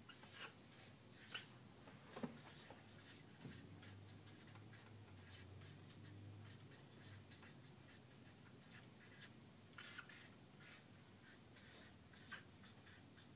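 Near silence: faint room tone with a low hum and scattered light scratches and clicks.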